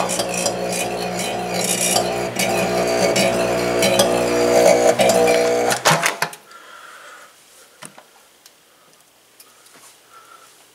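700-watt microwave oven running with a steady hum and a dense crackling of sparks from arcing inside it. The hum and most of the crackle cut off suddenly about six seconds in, leaving faint scattered ticks and crackles, with flames inside the oven.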